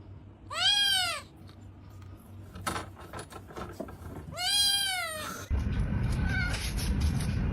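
A cat meowing twice, about four seconds apart, each meow rising and then falling in pitch. About five and a half seconds in, a low rumbling noise takes over.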